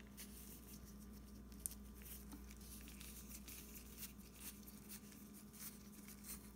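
Faint scratchy rustling and small ticks as nitrile-gloved hands unscrew the threaded end cap of an AAC Element 2 suppressor by hand, over a low steady hum.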